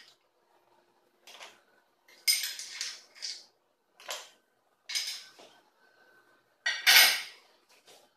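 Ice and a spoon clinking against stemmed drinking glasses as ice is added to juice: about five separate clinks or short clusters of clinks, the loudest near the end.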